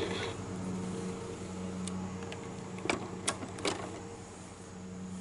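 A few small plastic clicks and taps as fingers handle the base of a plastic electronic toy near its slide switch, over a steady low hum.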